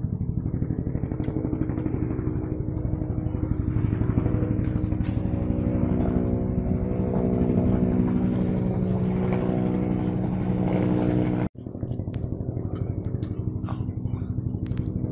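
Sheriff's helicopter flying overhead: a steady, fast pulsing rotor beat over a steady engine hum. The sound cuts out for an instant about eleven and a half seconds in, then resumes.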